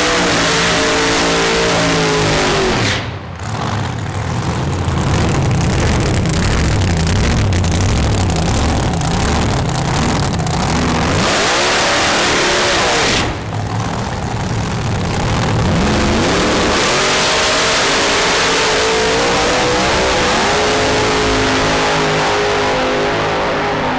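Supercharged drag racing car engines revving hard and running at high revs, loud and unbroken, with the pitch sweeping up around the middle. The level dips briefly twice, a few seconds in and about thirteen seconds in.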